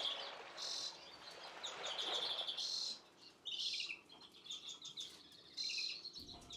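Young finches chirping: short bursts of high calls that come and go several times, with brief gaps between.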